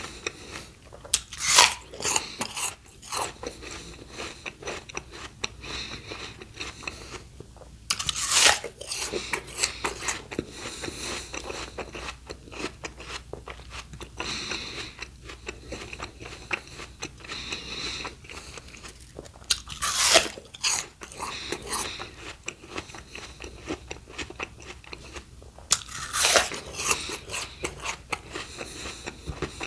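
Close-miked ASMR eating of crunchy raw produce: four loud crisp bites spread through the stretch, each followed by a run of wet crunching chews.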